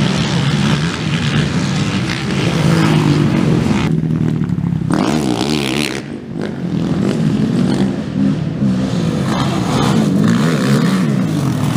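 Several racing quad ATV engines revving hard, their pitch climbing and falling with throttle and gear changes as they pass, with a brief dip in the sound about six seconds in.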